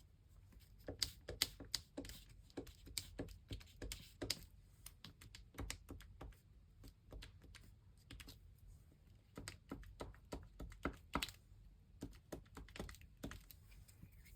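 Light, irregular tapping on a paper journal page as small dots of colour are dabbed on one by one, sometimes in quick clusters of several taps.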